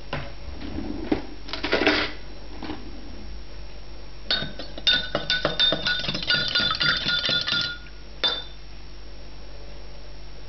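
A metal spoon stirring water in a drinking glass, clinking rapidly against the sides with a ringing tone for about three seconds, then one last clink. A few softer knocks and rustles come before the stirring.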